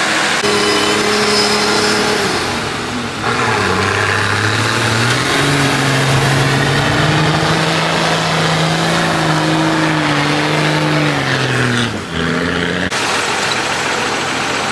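Off-road 4x4's engine revving hard while its wheels spin in thick, gripless clay. The revs climb about four seconds in, hold high for several seconds, then fall away.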